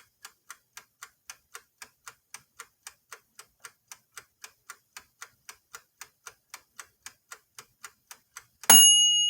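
Mechanical timer of an air fryer ticking evenly, about four ticks a second, then its bell dings loudly near the end as the timer runs out, ringing on and slowly fading.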